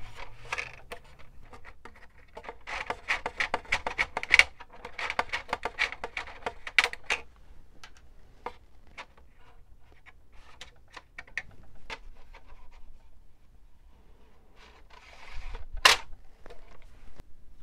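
Felt-tip marker scratching in a run of short strokes on the covered balsa tail of a model plane, with light handling clicks. The strokes come thick at first and then thin out to scattered clicks, and a brief rustle ends in one sharp click near the end.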